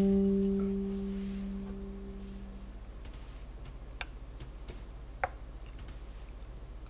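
The last plucked guitar note of the background music rings and fades out over the first couple of seconds. Then a small metal spreader stirring mozzarella and cream in a glass jar makes a few light clinks, the two clearest about four and five seconds in.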